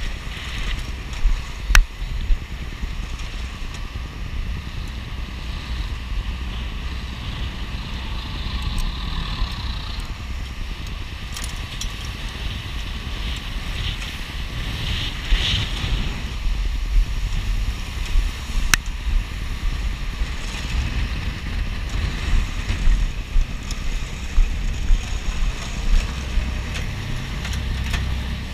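Pilot boat under way alongside a ship: wind buffeting the microphone and water rushing along the hull over a low engine rumble. Two sharp knocks come through, one about two seconds in and another about two-thirds of the way through.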